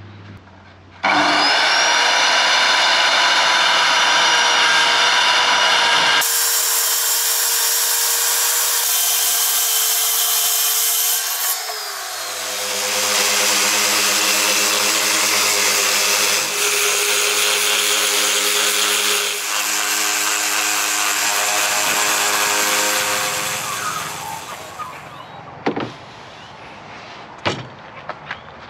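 A circular saw running on a guide rail (track saw), cutting through a jarrah hardwood board; it starts about a second in with a steady whine. From about twelve seconds in, a random orbital sander runs steadily on the jarrah, dying away near the end, followed by a few short knocks.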